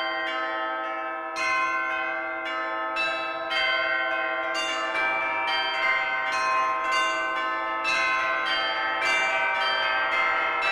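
Bells ringing: a run of struck notes, one every half second or so, each ringing on and overlapping the next over a lingering low hum.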